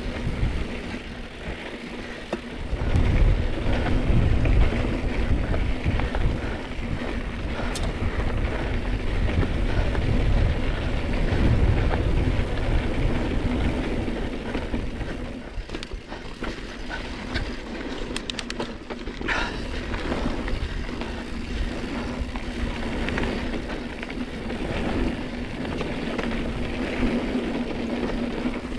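Mountain bike being ridden along a dirt trail: low wind rumble on the microphone mixed with tyre noise and rattle from the bike, over a steady hum. The rumble swells twice early on, and a short run of rapid clicks comes about two-thirds of the way through.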